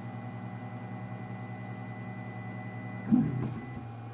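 3D printer running, its motors giving a steady hum as it prints the last of an ABS part, with a brief louder burst of motor noise about three seconds in.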